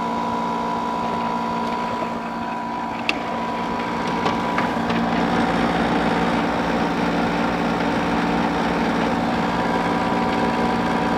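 General Electric ADEL50LRL2 dehumidifier running: a steady hum from its compressor under the even rush of its fan, with a higher steady tone on top. The unit is working and pulling water.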